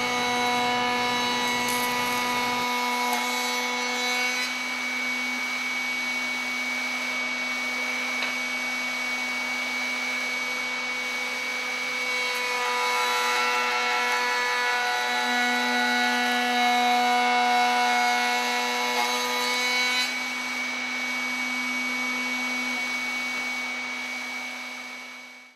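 Table-mounted router running with a steady whine as its Freud lock miter bit cuts a test profile along a hardwood board fed flat on the table. The cutting noise swells near the start and again about halfway, and the sound fades out at the end.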